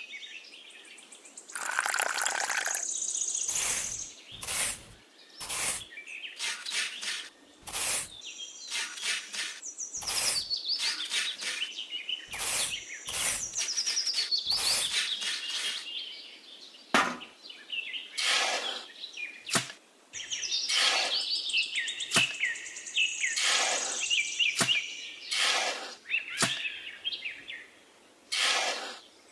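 Birds chirping and singing, with repeated short scrapes and taps from a small trowel working wet cement.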